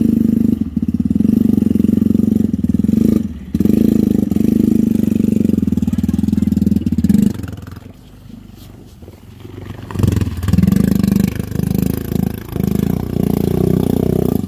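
Yamaha Bear Tracker 250 ATV's single-cylinder four-stroke engine running steadily as the quad wades through deep water, with water churning around it. The engine sound drops away for about two seconds near the middle, then comes back strongly.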